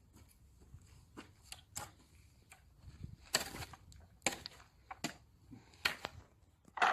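Irregular light clicks and knocks, a dozen or so, spread unevenly with the louder ones in the second half, ending in a brief louder rustle.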